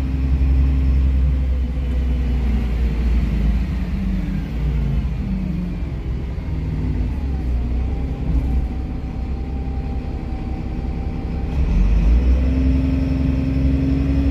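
Neoplan K4016td city bus heard from inside the passenger cabin. Its diesel engine drops in pitch as the bus slows over the first few seconds and runs quieter through the middle, then picks up again about twelve seconds in as the bus pulls away.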